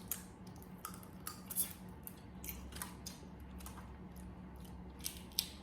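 Boiled crawfish being cracked and peeled by hand close to the microphone: a run of small sharp shell cracks and clicks, scattered unevenly, over a faint steady low hum.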